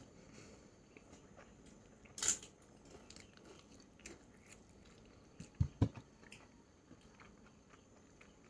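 A person eating chicken and rice close to the microphone: quiet chewing and small mouth clicks, with one louder crunchy bite about two seconds in and two short low knocks a little after the middle.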